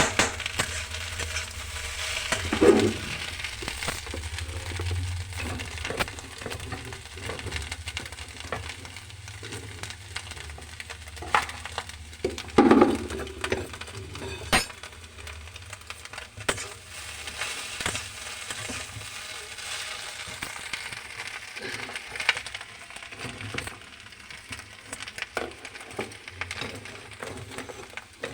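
Anda bhurji (egg) curry sizzling in a pan over a steady hiss, with a spoon clinking and scraping against the pan as it is stirred; two louder knocks come about 3 and 13 seconds in.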